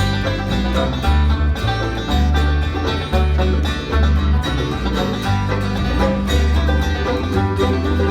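Acoustic folk string band playing an instrumental break: plucked strings over a steady, rhythmic bass line, with no singing.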